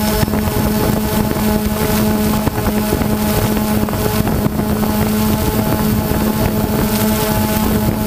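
DJI Phantom 2 quadcopter's motors and propellers running at a steady pitch, heard close from the GoPro camera carried on the drone, with wind noise on the microphone.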